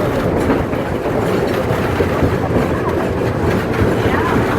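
A train rolling along the track, with a steady rumble and rattle of the wheels and cars on the rails.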